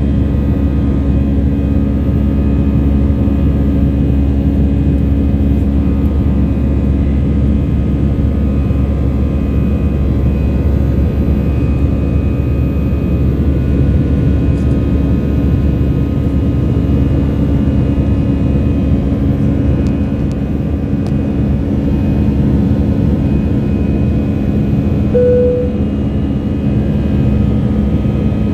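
Inside the cabin of an Airbus A319-112 climbing after takeoff, the CFM56-5B turbofan engines make a loud, steady drone with several steady tones running through it. A short tone sounds near the end.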